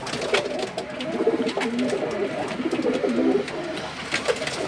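Several domestic pigeons cooing at once, their wavering coos overlapping, with scattered light clicks and taps.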